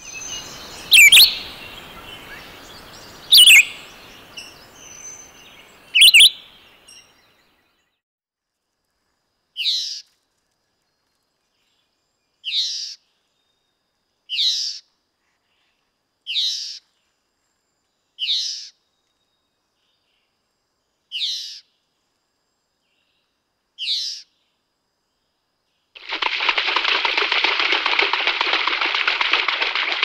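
Bird calls in three parts. First, a blue-winged kookaburra's harsh calls, three loud ones in the first six seconds. Then a crimson rosella's short calls, each falling in pitch, eight of them about two seconds apart. Near the end comes a dense, unbroken clamour from a flock of mallard ducks.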